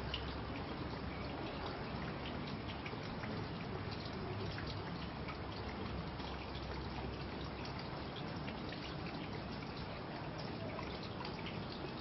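Water trickling steadily, with small irregular drips.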